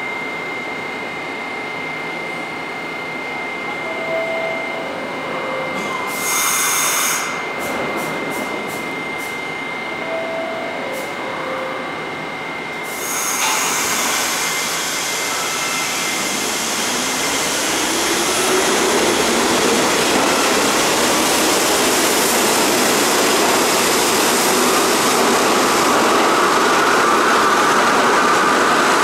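R32 subway train at the platform: a steady high hum, a short two-note chime twice, a brief hiss of air about six seconds in and a few clicks. Then, about halfway through, a whine starts low and rises steadily in pitch as the train noise grows louder.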